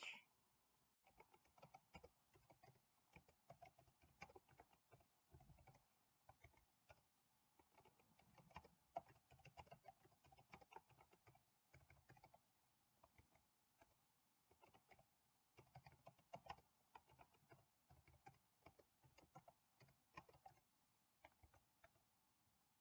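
Faint typing on a computer keyboard: irregular key clicks coming in short runs with pauses.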